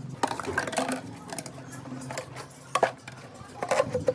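Irregular knocks and clinks of hard objects being handled, over a low steady hum; the loudest knocks come about three seconds in and again near the end.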